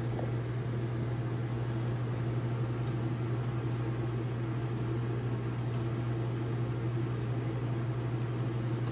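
Steady low mechanical hum of a machine or fan running, even in level throughout, with a few very faint clicks from handling wires.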